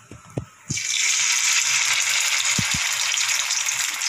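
Hot oil in a frying pan breaks into a loud, steady sizzle a little under a second in, as a spice-and-corn-flour-coated small fish is laid in to shallow-fry. A few light taps come just before.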